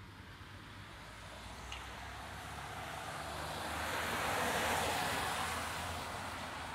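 A vehicle passing on a wet road, its tyre hiss swelling to a peak a little over halfway through and then fading as it goes by.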